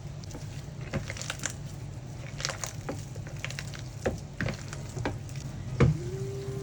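Bread dough with margarine being squeezed and mixed by hand in a bowl: irregular wet, sticky squelches and clicks, with one sharper knock near the end. A steady low hum runs underneath.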